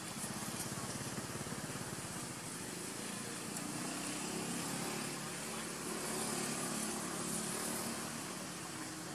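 A motor engine running, its low hum rising a little through the middle and easing off near the end, over a steady high hiss.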